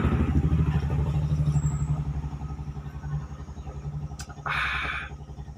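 A motor vehicle's engine running with a low, even throb, fading away over a few seconds. A short hissing sound comes about four and a half seconds in.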